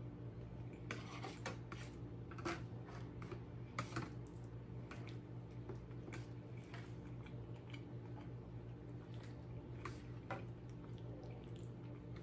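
A plastic fork clicking and scraping in a clear plastic takeout clamshell, with mouth sounds of chewing pasta. A scattering of sharp clicks, the loudest about two and a half and four seconds in, over a steady low hum.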